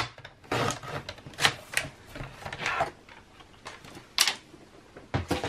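Sliding paper trimmer cutting a square of patterned paper diagonally: a sharp click at the start, then a series of swishes and scrapes as the blade runs along its rail through the paper.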